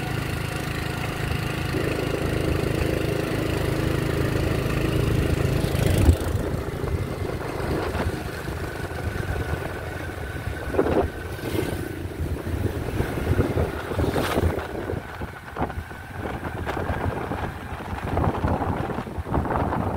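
Small motorcycle engine running while riding, with wind buffeting the microphone. There is a sharp knock about six seconds in, after which the engine's steady tone gives way to rougher wind noise.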